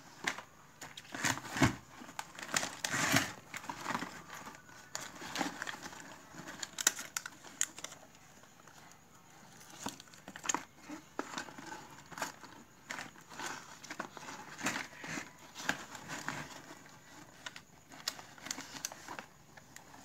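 Plastic snack wrappers and nut shells crinkling and rattling in a plastic dustbin as a hand rummages through them, in irregular bursts of crackles and clicks.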